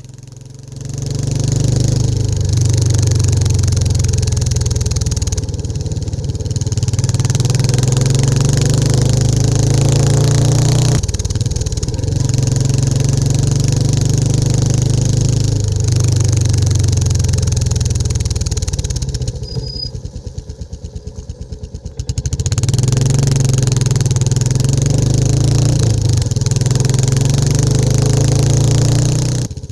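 Royal Enfield Classic 350's single-cylinder engine and exhaust under way on the road, pulling steadily with a steady high hiss of wind and road behind it. The engine note dips briefly a few times, and around twenty seconds in it drops off throttle to a slow thumping of single firing beats before picking up again about two seconds later.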